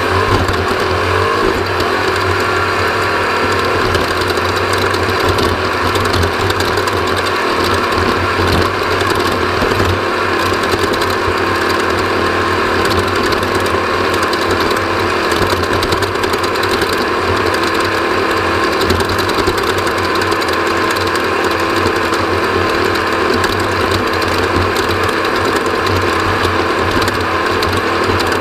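Off-road dirt bike engine running continuously under race load.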